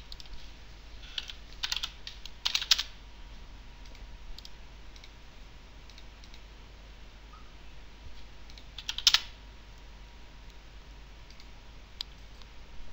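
Computer keyboard keystrokes in short bursts as stock ticker symbols are typed in: a cluster of clicks about two seconds in, another about nine seconds in, and a single click near the end, over a faint steady low hum.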